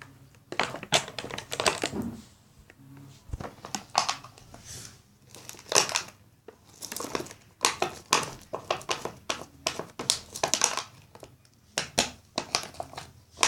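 Freshly mixed glue-and-borax slime being stirred and worked by hand, a run of uneven sticky smacks and rustles; the slime is still soft and not yet fully set.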